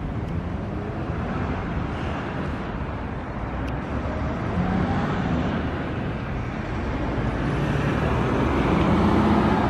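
Freeway traffic: a steady rush of tyres and engines from passing cars and trucks, swelling louder near the end as vehicles go by.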